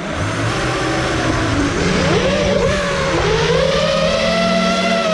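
FPV racing quadcopter's brushless motors (XING 2208 1800kv) and propellers whining, several pitches sliding up and down past one another about two to three seconds in as the throttle changes, then settling into a steady whine.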